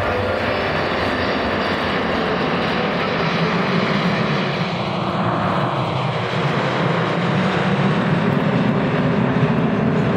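Four Kawasaki T-4 jet trainers in close formation flying overhead, their twin turbofan engines giving a steady jet noise that sweeps past about halfway through.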